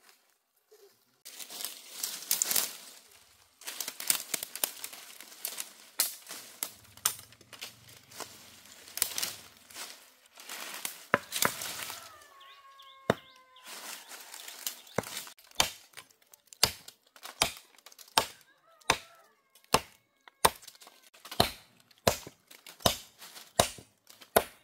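Crackling and snapping of branches and leaves for the first half. Then a blade chops wood in steady blows, a little under two a second.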